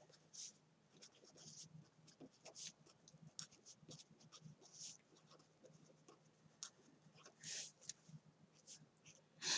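Pen scratching on paper as words are written out in many short, faint strokes. A brief louder noise comes right at the end.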